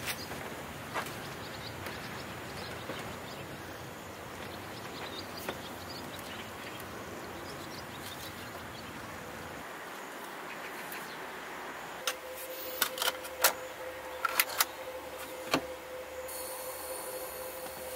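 Steady outdoor background hiss. From about twelve seconds in, a wall-mounted CD player takes over: a faint steady hum, a run of sharp clicks, then a thin high whine near the end as the disc spins up.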